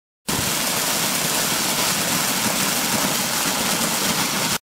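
Corn thresher running and shelling cobs, a steady, dense noise that starts abruptly and cuts off sharply.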